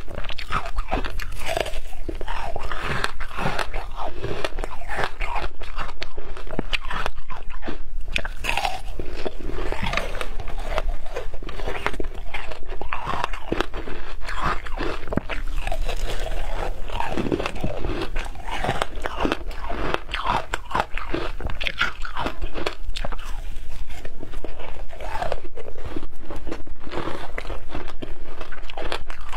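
Shaved ice topped with passion fruit pulp being bitten and chewed close to the microphone: loud, continuous, irregular crunching of ice.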